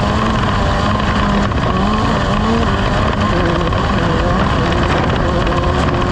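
Off-road race vehicle's engine running loud and steady, under a thick, even rushing noise.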